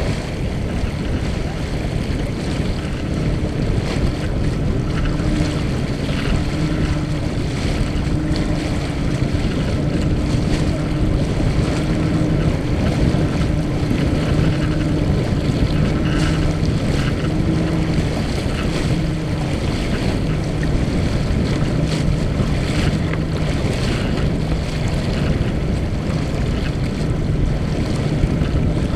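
Water rushing along the hull of a Mumm 36 sailboat moving fast under sail, with wind buffeting the microphone. A low steady hum sits under it through the middle stretch.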